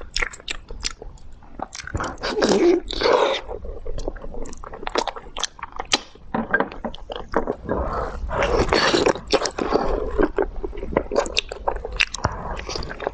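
A person eating noisily close to the microphone: biting and chewing seafood with many wet mouth clicks and smacks.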